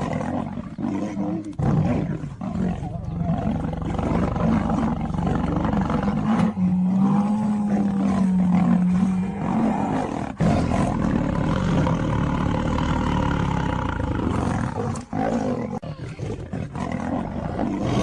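A lion and a tiger roaring repeatedly in a continuous, overlapping din, with one long, steady-pitched roar around the middle.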